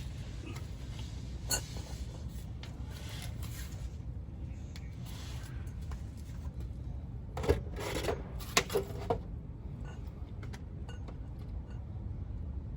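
Metal tools and parts handled, with scattered clicks and scrapes and a quick run of several loud, ringing metallic clanks a little past halfway, over a steady low hum.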